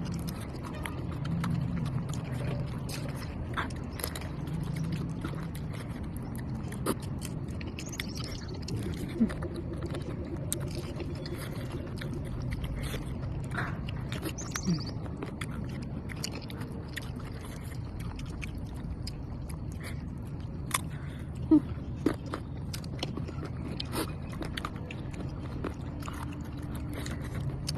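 Close-up mouth sounds of a person biting and chewing sour mango, with many small wet clicks and crunches scattered through, over a faint low background murmur.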